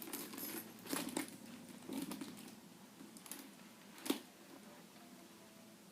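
Handbag chain strap, metal links interwoven with leather, clinking and rustling as it is handled and rearranged: a few faint, light metallic clinks spread over several seconds.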